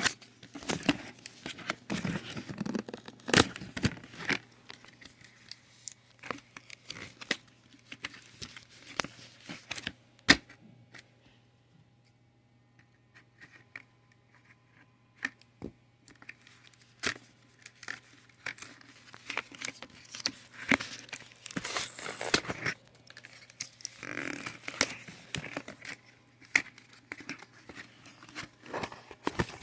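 Cardboard box and plastic packaging being handled, torn and crinkled in irregular rustling bursts as a large squishy toy is worked out of it. There is a quiet pause of a few seconds near the middle.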